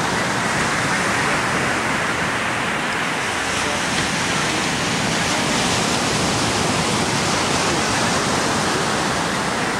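Steady rush of ocean surf, waves breaking and washing up a sandy beach as a continuous even hiss.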